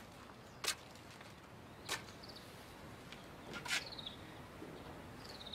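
Quiet outdoor ambience with a few sharp, irregular taps. Faint short, falling chirps of small birds come twice.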